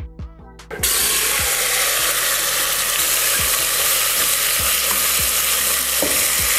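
Seasoned turkey neck pieces tipped into hot oil in a pressure cooker pot: a loud sizzle starts suddenly just under a second in and goes on steadily as the meat sears and is stirred.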